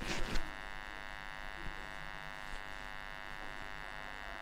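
A faint, steady electrical buzz with many overtones, with a brief rustle right at the start and a single faint click about a second and a half in.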